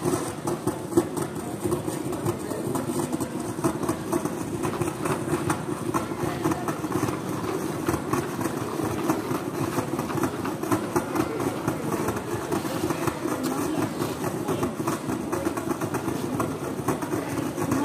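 A small engine running steadily at a constant pace.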